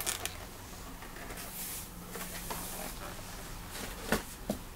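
Handling noise: light clicks, knocks and rustling as objects are picked up and moved about, with a couple of sharper clicks about four seconds in.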